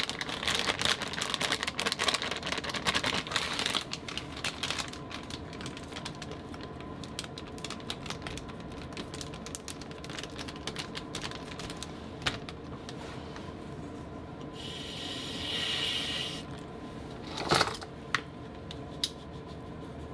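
Flour pouring out of a bag into a stainless steel bowl, a dense rustling crackle for the first few seconds, then fainter handling clicks. A brief hiss comes about fifteen seconds in, and two sharp knocks near the end.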